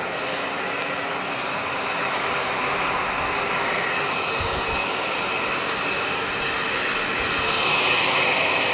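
Handheld electric hair dryer running, blowing air into a dog's fur: a steady hiss with a faint motor whine, a little louder near the end.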